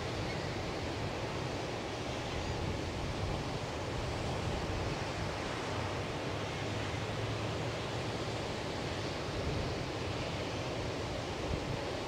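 Atlantic Ocean surf breaking and washing up the beach, a steady, even wash of waves.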